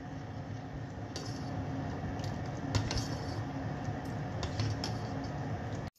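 Metal ladle stirring sauce in a small stainless steel saucepan, with a few light clinks of the ladle against the pan over a steady background hiss.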